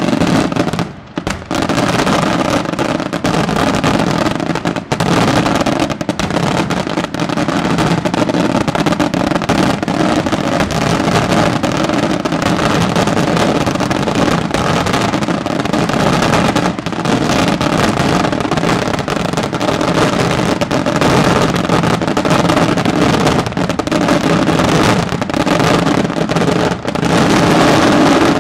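Daytime display fireworks going off in an unbroken rapid barrage: bangs and crackling bursts packed so close they merge into a loud continuous roar, which stops abruptly at the very end.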